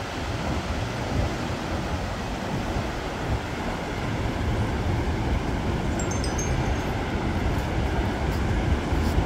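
Wind buffeting the microphone: a steady, gusting low rush with no clear tones.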